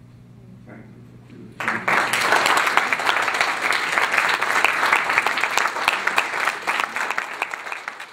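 Audience applauding: many hands clapping break out together about a second and a half in, keep up a dense, steady clatter, and begin to fade near the end.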